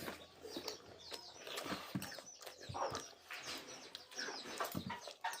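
Close-up eating sounds: chewing, wet mouth clicks and lip smacks, with small knocks, coming several times a second.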